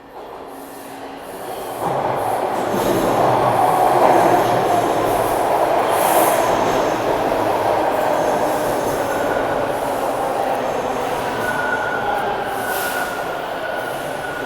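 TTC Line 2 subway train pulling into the station: the rumble of the cars swells sharply a couple of seconds in and stays loud, with wheel squeal, and a steady high squeal sets in near the end as it slows.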